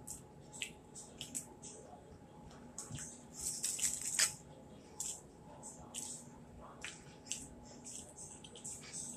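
Crisp breading of fried fish fillets crackling and tearing as they are pulled apart by hand over a foil-lined plate. The crackles come in scattered clusters, busiest about three and a half to four seconds in.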